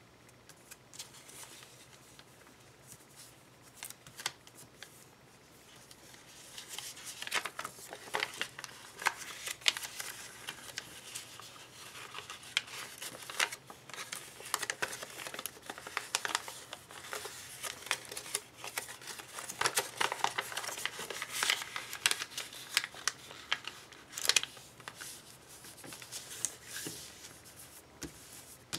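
Sheet of origami paper being folded and creased by hand: crisp rustling and crinkling with many sharp crackles. It is faint with only a few clicks at first, gets busy about six seconds in, and thins out near the end.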